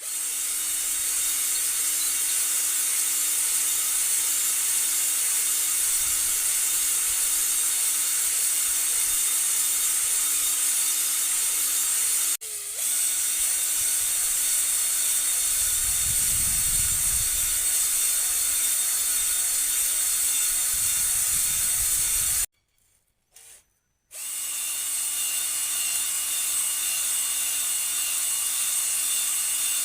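Electric power tool running steadily with an abrasive attachment scrubbing metal engine parts, a high scratchy hiss over a steady motor hum. It cuts out for a moment partway through, then stops and starts up again near the end.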